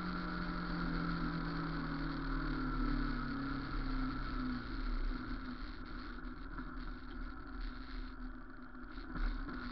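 A vehicle engine running steadily, its pitch sinking slightly before it fades out about halfway through, leaving an even background rumble.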